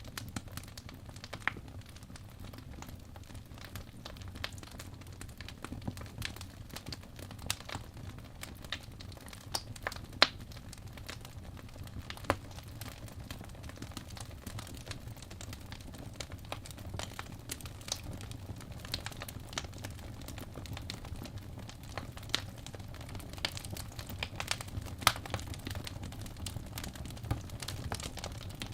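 A fire in a fireplace crackling, with irregular pops and snaps over a low steady rumble and a few louder snaps.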